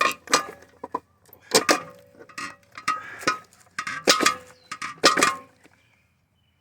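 Metal parts of an air conditioner clanging and clinking as they are knocked and handled during dismantling: a series of sharp, ringing metal strikes, about seven in all, stopping about a second before the end.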